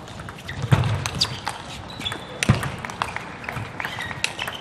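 Table tennis rally: the ball clicking sharply off the bats and table in quick succession. Short high squeaks and a couple of heavier thumps from the players' footwork are mixed in.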